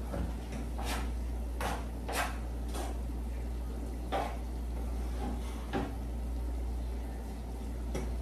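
Metal tongs clinking against a pan as food is turned, a handful of sharp separate clinks spread over several seconds, over a steady low hum.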